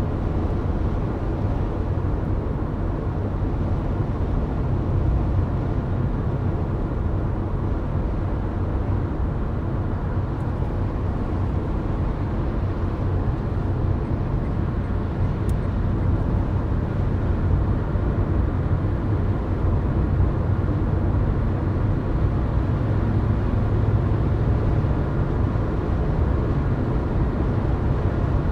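Steady road noise of a car cruising at highway speed, heard from inside the cabin: a low tyre-and-engine drone that stays even throughout.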